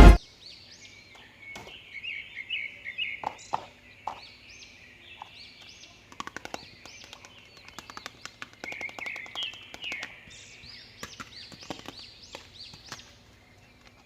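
Small birds chirping over and over in quick curved notes, with scattered light clicks and taps.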